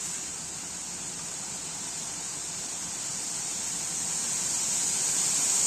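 Steady, even hiss with no distinct events, slowly getting louder toward the end.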